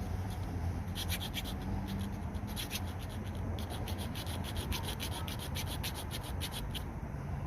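Victorinox Spirit X multitool's metal file rasping back and forth on a rusty steel chain: a quick, even run of scraping strokes, about four a second, starting about a second in and stopping near the end.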